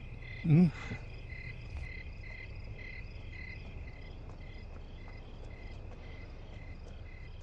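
Crickets chirping in a steady pulsing rhythm over a low hum. A brief voice sounds about half a second in.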